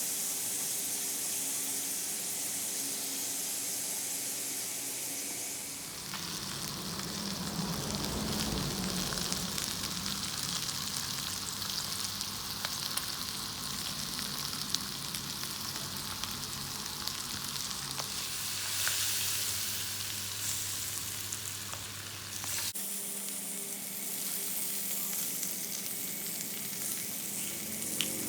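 Pork belly and vegetables sizzling as they fry, a steady hissing crackle. The sizzle changes abruptly about six seconds in and again about three quarters of the way through, as one take cuts to another.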